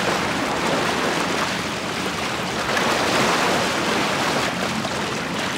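Churning white water rushing and foaming, a steady, even rush of falling and tumbling water.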